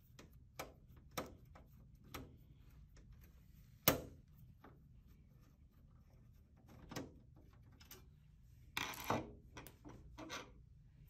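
Scattered faint clicks and knocks of a screwdriver and hands working inside an open steel desktop computer case, as the screw holding the capture card's bracket is backed out. One sharper click comes about four seconds in, and a brief scrape near the end.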